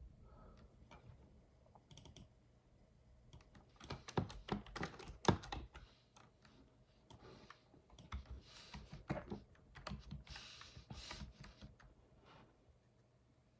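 Typing on a computer keyboard: irregular runs of key clicks in two spells, a few seconds in and again in the second half, with a couple of short hissy rustles among the later clicks.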